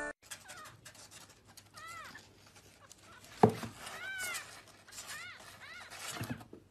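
A kitten mewing: four or five short, high mews, each rising then falling in pitch, over light scratching and rustling on cardboard. A single sharp thump about three and a half seconds in is the loudest sound.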